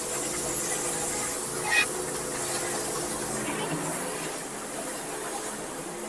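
Large custom-built band sawmill blade cutting through a maple log: a steady hiss from the cut, with one brief high squeak a little under two seconds in.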